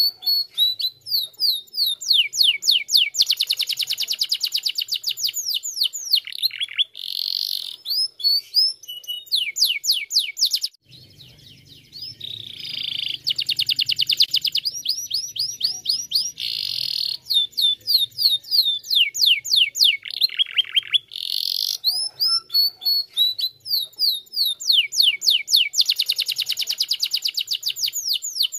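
Domestic canary singing a long song of fast trills and rapidly repeated high notes, with a brief pause about eleven seconds in.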